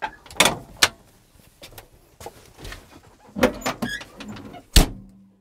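Sound effects of an end-card logo sting: a string of sharp mechanical clicks and knocks with short swishes. The loudest is a heavy hit near the end, which leaves a brief low hum that cuts off.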